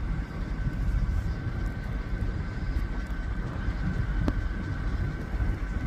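Low, steady rumble of an idling vehicle with a faint steady whine above it, and a single click about four seconds in.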